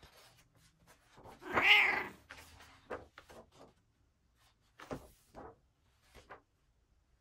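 A cat meows once, a long drawn-out call about a second and a half in, followed by soft papery rustles and taps as journal pages are turned.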